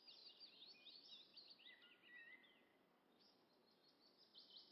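Faint songbirds chirping, an outdoor ambience bed: quick chirps and a short trill in the first half, a brief lull near the middle, then more chirps near the end.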